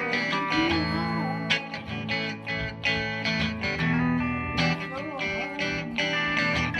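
Guitar music: plucked and strummed guitar chords in a steady run of attacks, with some notes bending in pitch.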